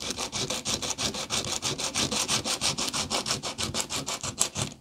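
Small hardwood bow former sanded by hand on a sandpaper-covered block: quick, short, regular rasping strokes, several a second, as the part is worn down to shape.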